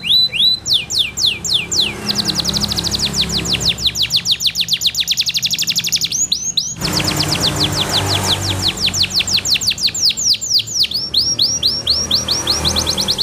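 Domestic canary singing loud, clear rolling trills of rapid repeated falling notes. The tempo shifts from tour to tour, with a short break about six seconds in and slower, separate notes near the end.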